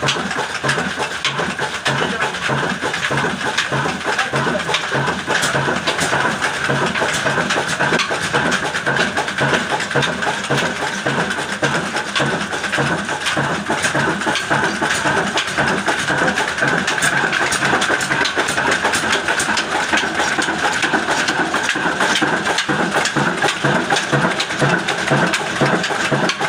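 Old Ruston-type desi 'Kala' single-cylinder oil (diesel) engine running steadily with an even, regular firing beat.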